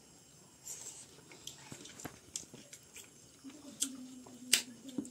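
Close-up eating sounds: wet chewing and lip smacks of rice with chicken gravy eaten by hand, with many short clicks. A low hum is held for about a second and a half near the end, and a sharp click about four and a half seconds in is the loudest sound.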